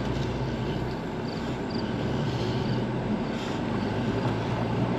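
Steady engine and road noise inside a moving car's cabin, with the windows down and the air conditioning running.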